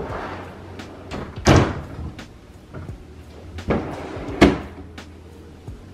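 Tall cabinet doors being swung shut one after another: a string of knocks and thuds, with the loudest about a second and a half in and again about four and a half seconds in.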